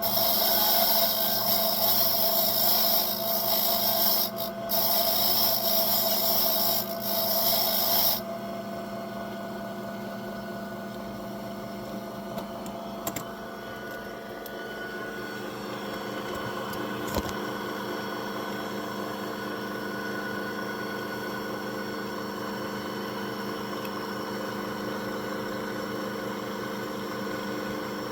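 Key-cutting machine running, its cutter grinding into a Schlage key blank for about eight seconds with brief breaks, then the motor spinning on freely with a couple of small clicks.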